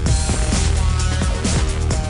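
Electronic dance music with a steady, heavy beat and strong bass.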